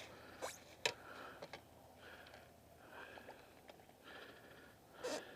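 Faint breathing and sniffing, a puff roughly once a second, with a few light clicks and knocks in the first second and a half and a louder short rustle near the end.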